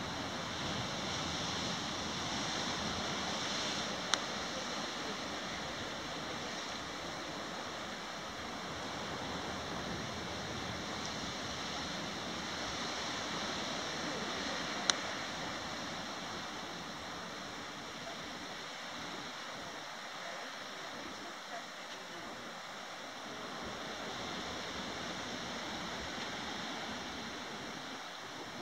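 Steady rushing of sea surf, slowly swelling and easing, with two sharp clicks about four and fifteen seconds in.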